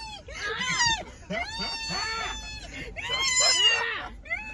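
A woman's high-pitched frightened screams and squeals, several in a row with short breaks, from inside the car as a large animal comes up to the open window.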